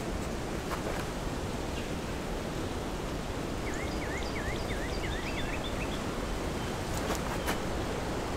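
Steady wind noise outdoors, an even rushing hiss, with a bird's quick run of six or seven short repeated chirps about four seconds in. A few faint taps near the end.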